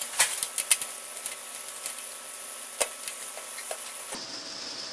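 Light, irregular clicks and taps of small plastic and metal parts being handled, with a cluster in the first second and a sharper single click near the middle.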